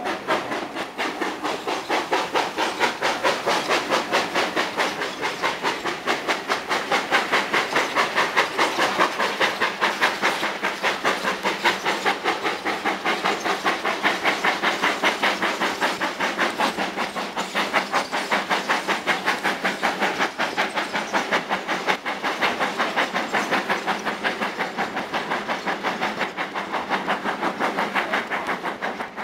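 Steam locomotive working hard, its exhaust chuffing in a fast, even rhythm of about five beats a second with a steady steam hiss, heard from an open carriage window of the train it is hauling.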